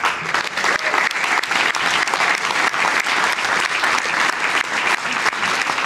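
Audience applauding. The clapping breaks out all at once and keeps on, steady and loud.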